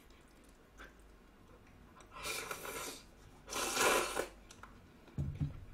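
A person slurping ramyeon noodles and broth from a bowl: two long, noisy slurps about two and three and a half seconds in, the second the louder. A short low sound follows near the end.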